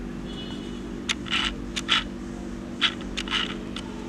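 Steady low hum with a scattering of short scratchy clicks and rustles, about eight of them, between one and four seconds in.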